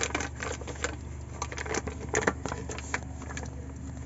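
Thin plastic fish bag crinkling and rustling in irregular crackles as it is untied and opened, with water splashing in the bag near the end.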